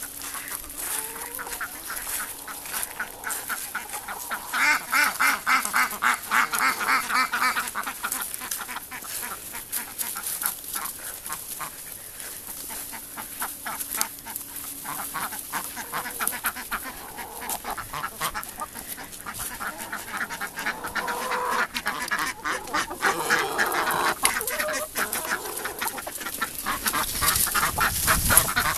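A flock of chickens and ducks calling together, a dense run of quacks and clucks. It swells about five seconds in and again over the last several seconds.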